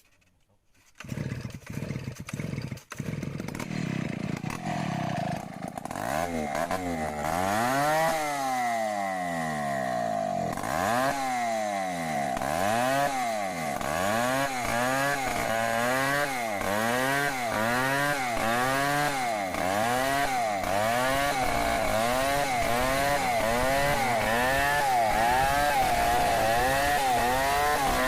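Two-stroke chainsaw running, its engine speed rising and falling about once a second in a steady repeating cycle. A few knocks come first, and the saw sound builds in over the first several seconds.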